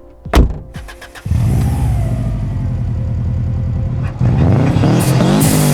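Subaru Impreza GC8's EJ207 turbocharged boxer four-cylinder with a straight-pipe exhaust, coming in suddenly about a second in after a sharp click and running steadily. About four seconds in it gets louder and the revs climb, with a burst of hiss near the end.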